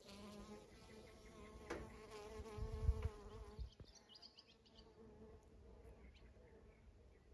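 A bee buzzing close by, a steady hum that fades out after about three and a half seconds, with a few low thumps near the middle.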